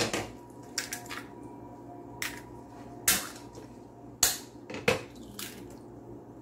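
Eggs being cracked against the rim of a stainless steel bowl: several sharp taps and shell cracks, with the contents dropping into the bowl.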